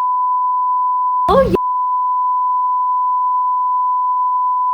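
Censor bleep: a steady, single-pitch beep tone dubbed over speech to hide the words, broken once about a second and a half in by a brief snatch of voice.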